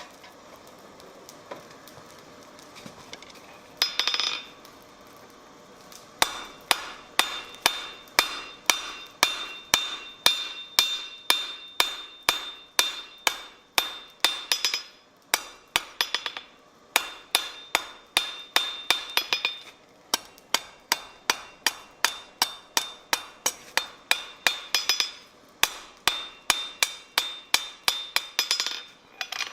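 Hand hammer striking iron on an anvil in runs of about two blows a second, broken by short pauses. A bright ringing carries through each run.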